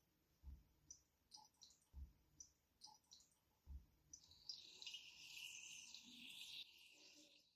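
Vintage Vesuviana espresso machine brewing: three soft low thumps about a second and a half apart with light crackling clicks, then a sputtering hiss for about three seconds as the coffee is forced through.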